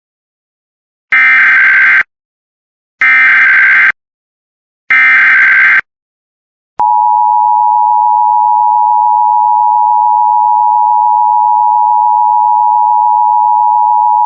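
Emergency Alert System tones: three short bursts of the digital SAME header, each just under a second long and about a second apart, then the steady two-tone EAS attention signal starting about halfway through and holding.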